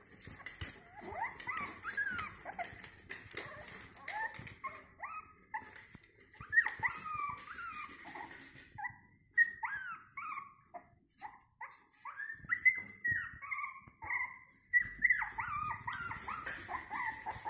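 A litter of five-week-old Jack Russell Terrier puppies whining and whimpering in many short, high calls, often overlapping, with brief lulls a few times.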